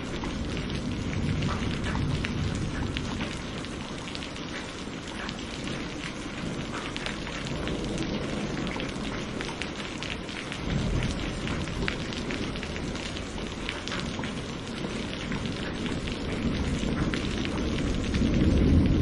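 Steady rain with dense pattering drops, and low rolling thunder that rumbles up about halfway through and builds again near the end.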